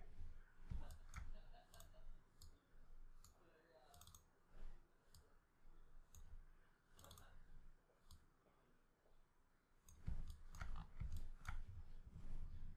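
Faint, irregular clicking of a computer mouse and keys, single clicks scattered a second or so apart, with louder low bumps in the last few seconds.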